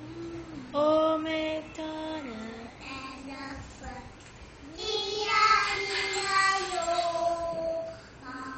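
Young children singing a kids' song in held, stepping notes, loudest about five to seven seconds in.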